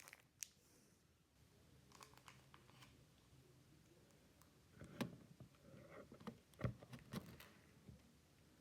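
Near silence with a few faint taps and soft rustles of trading cards being handled, the clearest cluster about five to seven and a half seconds in.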